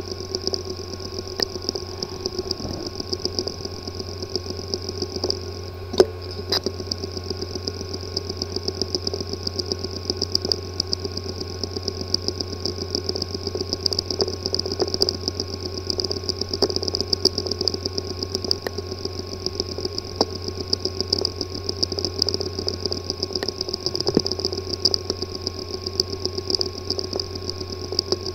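A hard drive with a physically damaged disk assembly, spinning with a steady whir and hum while rapid, irregular small clicks tick over it, several a second, with one louder click about six seconds in. The clicking is the symptom of physical damage inside the sealed drive.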